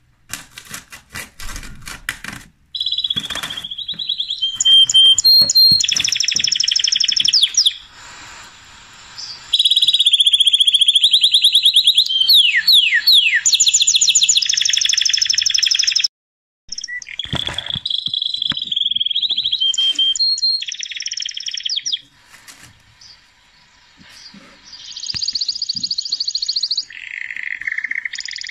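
Songbird, canary-like, singing in long, fast, high-pitched trills and rolls with sliding notes. It breaks off in several pauses, once cutting out abruptly just past the middle.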